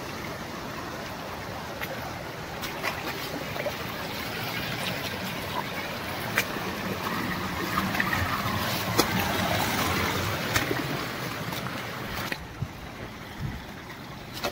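Shallow stream rushing and splashing over rock ledges and small cascades. It is loudest a little past the middle and drops off suddenly about two seconds before the end, with a few sharp clicks scattered through it.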